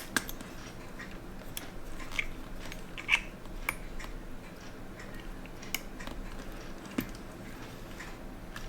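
Scattered small clicks and taps of metal watchmaker's tools on a quartz watch movement, the sharpest a little over three seconds in, over a faint low hum.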